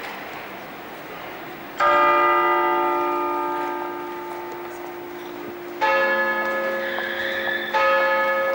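Church bells ringing: three loud strikes, about two, six and eight seconds in, each leaving several ringing tones that fade slowly. A low murmur of street noise lies underneath.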